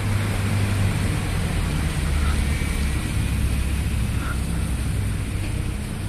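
Street traffic: a steady low rumble of cars on the road.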